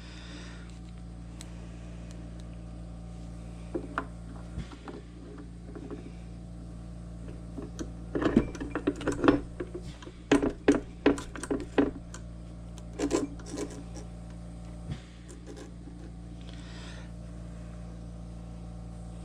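Small metal parts being handled and tapped together: a run of light clinks and taps in the middle, with a few single ones earlier, over a steady low hum.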